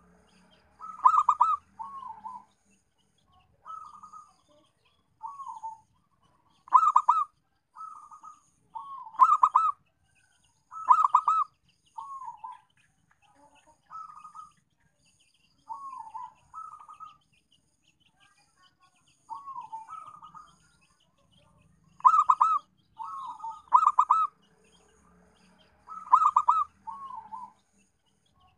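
Zebra dove (perkutut) cooing: a string of short rolling, purring coos every second or two, louder phrases alternating with softer down-slurred notes, with a brief lull a little past the middle.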